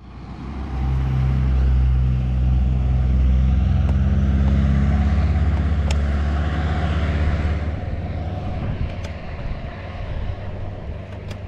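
Wind and road noise rumbling on a handlebar-mounted camera's microphone as a road bike rides up a wet mountain road. A car passes in the other lane about six to eight seconds in, and there are a few sharp clicks.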